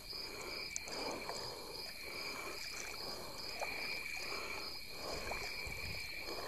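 Kayak paddle strokes swishing through calm water in a rhythm of about once a second. Over them, insects trill steadily at a high pitch, with a faster pulsing chirp above.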